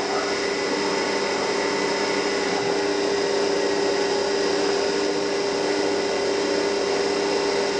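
CNC mini mill running steadily with a constant motor whine, its cutter feeding slowly along the inlet-port slot at a reduced feed rate.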